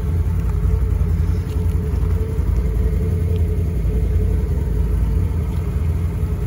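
Can-Am Outlander ATV engines idling steadily, a continuous low rumble with a steady hum.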